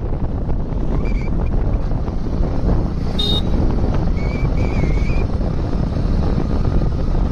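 Wind buffeting the microphone on a moving motorbike: a steady, loud low rumble of wind and road noise, with a few short high chirps in the middle.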